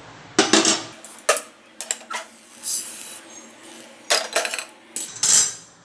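A spoon scraping roasted fenugreek seeds out of an aluminium kadai: a series of short, irregular scrapes and clinks against the pan, with the dry seeds rustling.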